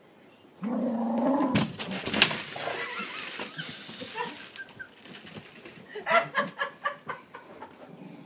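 Cocker spaniel barking: a loud outburst starts about half a second in, sharp knocks come around two seconds, and a quick run of short barks follows near the end.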